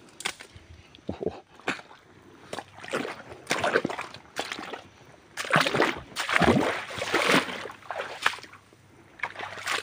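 Irregular short splashes and sloshing of shallow water, a dozen or so uneven bursts, loudest about two-thirds of the way through, as a person moves through the water.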